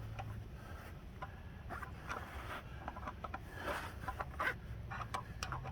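Faint scattered clicks and scrapes of a socket and breaker bar being worked on a stuck axle hub nut.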